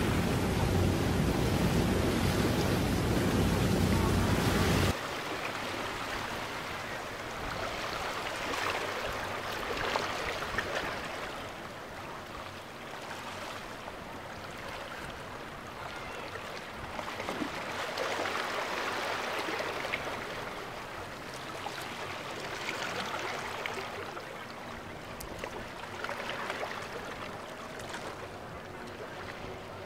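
Waves and surf washing, with wind buffeting the microphone. About five seconds in the loud, low wind rumble drops off abruptly, leaving quieter surf that swells and ebbs every few seconds.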